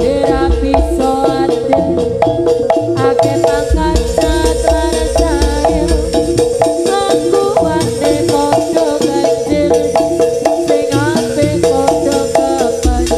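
Jaranan gamelan ensemble playing an instrumental passage: quick runs of pitched metallophone notes and drums over a steady held tone.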